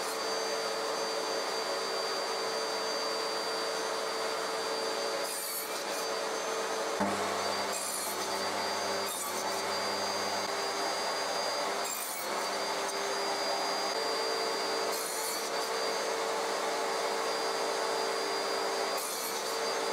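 DeWalt DW745 table saw running steadily, its blade cutting wood with short rasps every few seconds as a workpiece clamped upright in a tenon jig is pushed through to cut an open mortise for a bridle joint.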